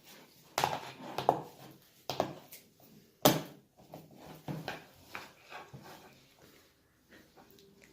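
Slime being mixed and worked, giving irregular squishy clicks and knocks, the loudest a little past the middle.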